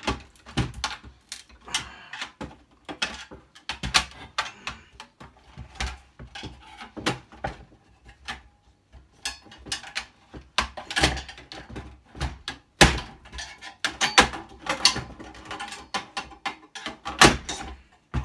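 Screwdriver prying and levering a circuit-board assembly out of its casing by force: a string of irregular clicks, knocks and scrapes of metal and plastic.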